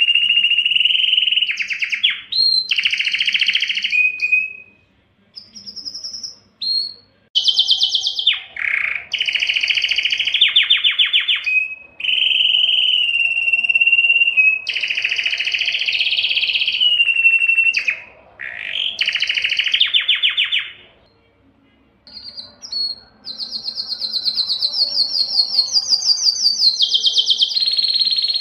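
Male domestic canary singing in breeding condition: long phrases of very fast trills alternating with held, steady whistled notes. The song breaks off briefly about five seconds in and again around twenty-one seconds in.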